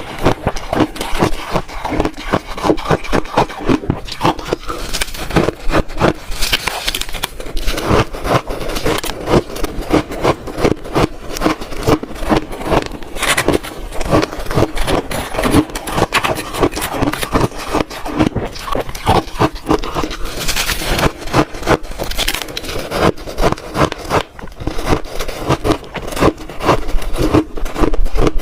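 Close-miked crunching of frozen shaved ice being bitten and chewed, a steady, rapid succession of crisp cracks without pause.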